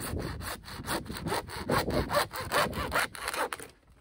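Handsaw cutting through an orange plastic drain pipe with quick, even back-and-forth strokes. The sawing stops just before the end as the pipe is cut through.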